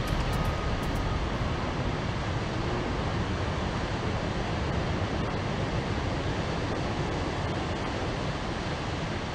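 Ocean surf breaking and washing in around the pier's concrete pilings: a steady rush of waves.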